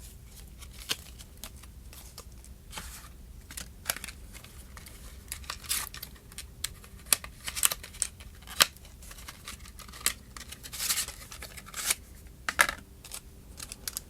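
Plastic packaging crinkling and tearing with scattered sharp clicks and taps as a replacement phone battery is unpacked by hand.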